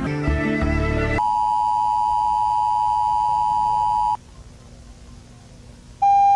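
Electronic music cuts off about a second in, replaced by a loud, steady two-tone emergency alert attention signal held for about three seconds that stops abruptly. After a short quieter gap, a single steady alert tone starts near the end.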